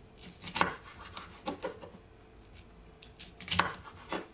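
Chef's knife slicing a yellow sweet pepper into strips on a wooden cutting board: a series of crisp cuts with the blade knocking the board, two of them louder, about a second in and about three and a half seconds in.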